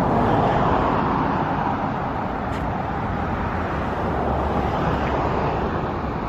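Road traffic going by: a steady rush of tyre and engine noise that is strongest near the start and slowly fades.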